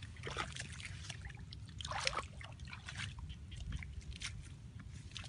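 Shallow muddy water sloshing and splashing as hands scoop and push through it, in short irregular splashes.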